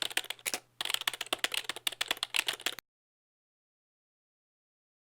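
Rapid, irregular clicking of a plastic speedcube being turned, cutting off suddenly about three seconds in and followed by dead silence.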